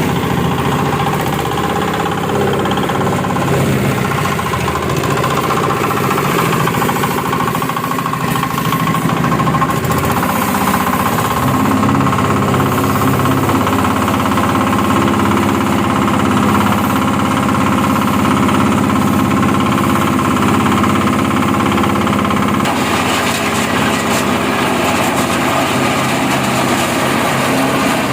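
An areca nut peeling machine running, with a steady, loud motor drone and a knocking mechanical rattle. Its tone shifts about eleven seconds in.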